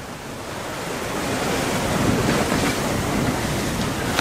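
Sea waves rushing around a small sailboat under sail, with wind buffeting the microphone; the rush of water swells over the first couple of seconds and then holds steady.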